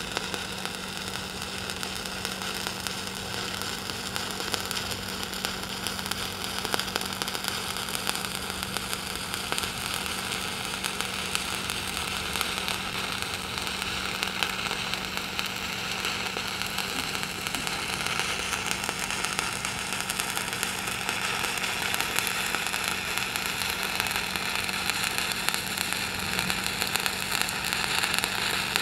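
Stick (SMAW) welding arc crackling and sizzling steadily as the electrode burns at about 92 amps, laying a vertical-up cap bead with a side-to-side weave. A faint steady hum sits underneath.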